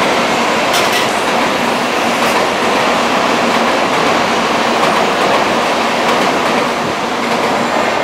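Tokaido Shinkansen N700-series train passing slowly over an elevated viaduct: a steady running noise of wheels on rails with a few sharp clicks in the first seconds, easing slightly near the end as the last cars go by.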